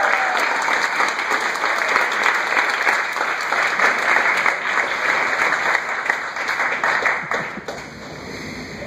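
Audience applauding: dense clapping that thins out and dies away about seven to eight seconds in.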